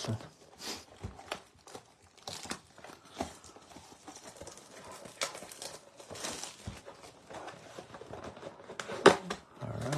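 Hands handling a cardboard trading-card mega box: scattered taps, scrapes and rubs of fingers on the cardboard as it is turned over and worked open, with one louder knock about nine seconds in.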